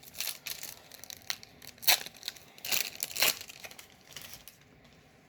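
Crinkling and tearing of a foil Magic: The Gathering booster-pack wrapper being opened: a run of sharp crackles that dies away about four seconds in.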